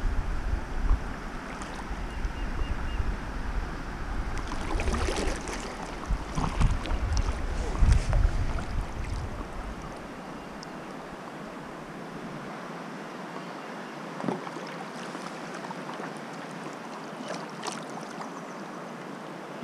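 Wind buffeting the microphone over water moving around a kayak, with a few small splashes and knocks against the hull. The wind rumble drops out about halfway, leaving a steady hiss of river water.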